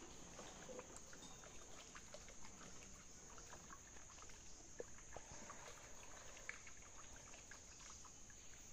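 Near silence: faint trickling of water and scattered small ticks and knocks from a canoe on still water.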